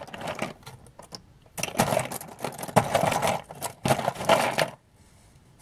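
Loose plastic LEGO minifigures and parts clattering and rattling against each other as a hand rummages through them in a cardboard box, in several short spells with a lull near the end.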